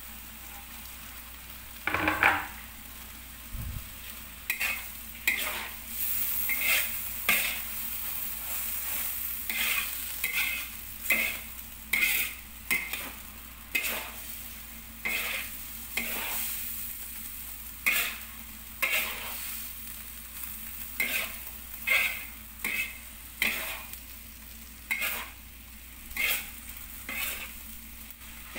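Noodles sizzling in a large hot wok while a metal spatula scrapes and tosses them, the spatula striking the wok about once a second. A louder knock comes about two seconds in.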